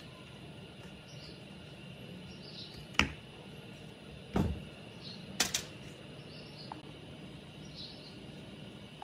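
A few sharp knocks and clicks, as of tools or metal parts being handled: one about three seconds in, one near the middle, a quick pair just after, and one at the end. Faint bird chirps recur against a steady low background.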